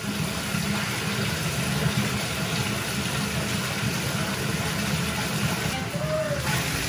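Water running steadily from a faucet into a bathtub.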